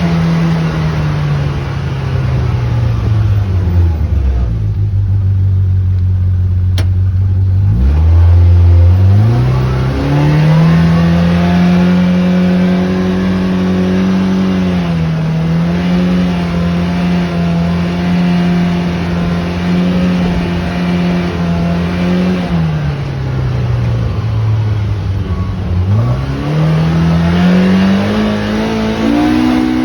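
A vehicle engine running under way. Its pitch sinks as it slows over the first few seconds, climbs again about eight seconds in, holds steady with a brief dip, drops a little past twenty seconds, and rises once more near the end.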